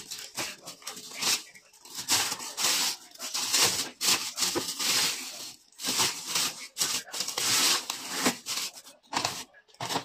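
Plastic shopping bags rustling and crinkling in irregular bursts as frozen food packages inside them are handled.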